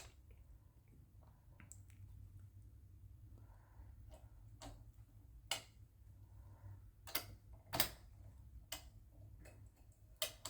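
Irregular light clicks and taps of small parts being handled on a Sears Kenmore sewing machine, over a low steady hum.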